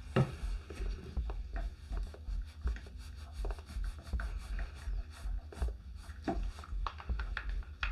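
A stir stick scraping and clicking against the sides of a plastic resin cup as tinted epoxy resin is mixed by hand, in irregular short strokes several times a second.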